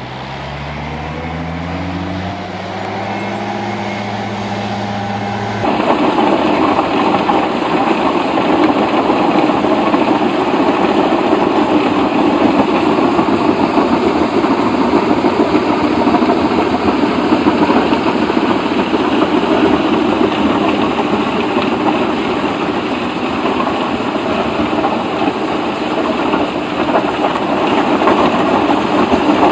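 A large machine engine revs up, its pitch rising over about two seconds and then holding steady. About five and a half seconds in it gives way abruptly to a louder, steady, coarse machine noise that continues throughout.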